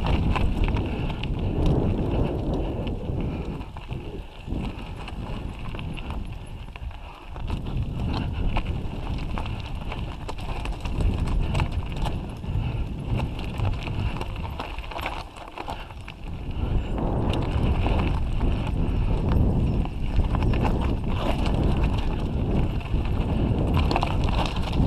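Mountain bike rolling down a rocky, gravelly singletrack: tyres crunching over loose stones, with a steady stream of rattling knocks from the bike and a low rumble through the camera mount. It eases off for a few seconds twice along the way.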